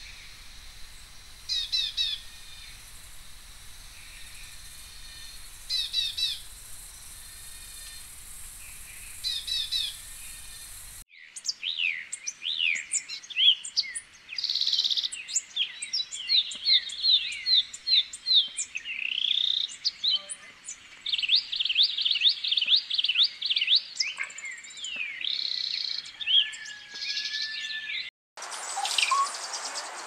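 Wild songbirds calling. At first there is a short burst of chirped notes about every four seconds over a steady hiss. Then a busy stretch of many quick, high chirps and whistling sweeps from several birds stops abruptly near the end, leaving mostly hiss.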